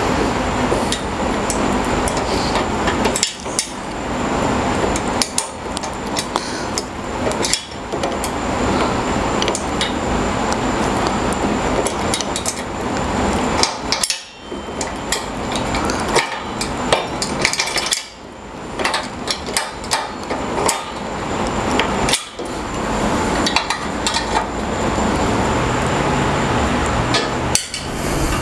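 Metallic clicking and clanking of a wrench working the bolts that fasten a caster wheel to a steel router-table stand, in a cramped spot, with several short pauses.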